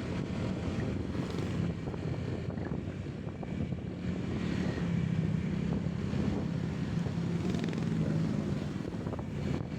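Steady drone of a moving vehicle's engine and road noise, with a low engine hum that grows stronger about halfway through and eases near the end.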